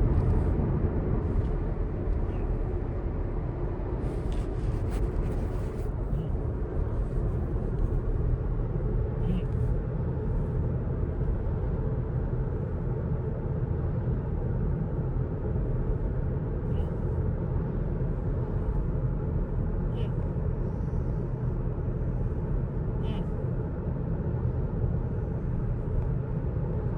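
Steady low road and engine rumble inside a moving car's cabin, with a few faint, short sounds every few seconds.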